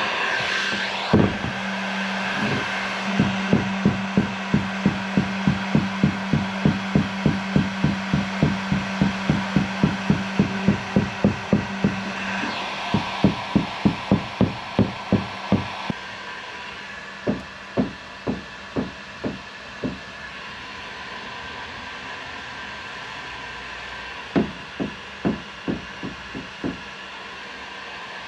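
A heat gun blowing steadily while something knocks on hard plastic in a fast regular run, about three knocks a second. About 16 seconds in the heat gun stops, and the knocking carries on in two short runs of a few knocks each.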